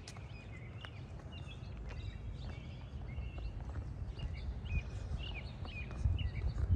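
Songbirds chirping and calling in short, repeated high notes over a steady low rumble.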